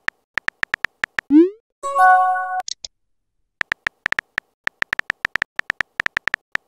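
Texting-app sound effects: a run of quick keyboard tap clicks as a message is typed, a short rising swoosh as it is sent, and a brief synthesized chime. Then a longer run of typing clicks ends in a second send swoosh.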